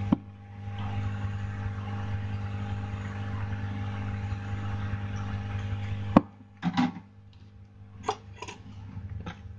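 Hot air rework gun blowing onto a phone's charging-port board: a steady rushing of air over a low electrical hum, which cuts off about six seconds in. A sharp click and a few short knocks and taps follow.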